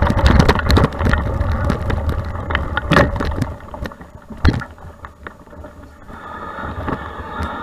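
Mountain bike ridden over a rough dirt forest trail, heard from a camera on the bike or rider: a low rumble of wind and tyre noise with rattles and sharp knocks as the bike goes over roots and rocks. The loudest knocks come about three and four and a half seconds in. The sound then dies down to scattered clicks as the bike slows to a crawl.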